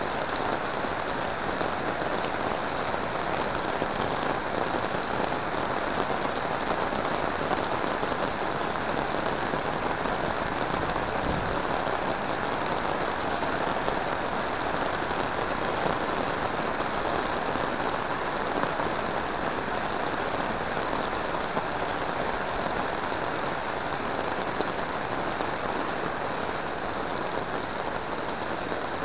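Heavy rain falling steadily: a dense, even hiss of drops on roofs, paving and wet ground.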